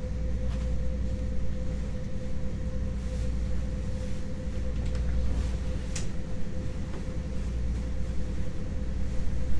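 The motor yacht's twin inboard engines running steadily at slow cruising speed: a constant low drone with a steady higher hum over it.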